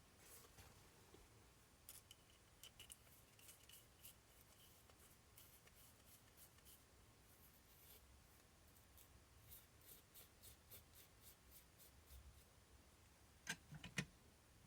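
Near silence with faint scattered ticks of small RC shock parts being handled, then two sharper clicks about half a second apart near the end.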